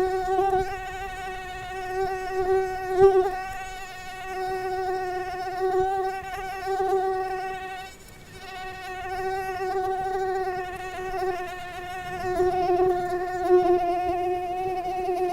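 Mosquito's wingbeat whine: a steady buzzing hum with many overtones that wavers slightly and swells and fades in loudness, breaking off briefly about eight seconds in.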